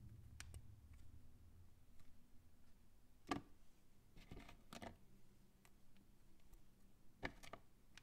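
Small plastic Plus-Plus building pieces clicking as they are pressed together, picked from a loose pile and set down on a table: a few scattered light clicks, the sharpest about three seconds in, over near silence.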